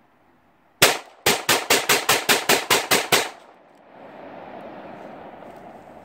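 Close gunfire: a single shot, then a rapid string of about ten shots at roughly five a second, followed by a softer rolling echo across the valley for a couple of seconds.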